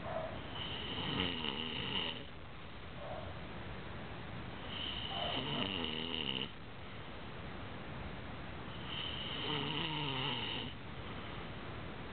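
A woman snoring in her sleep: three long snores about four seconds apart, each lasting about two seconds, with a wavering low pitch and a steady high tone running through it. Brief faint breaths come between them.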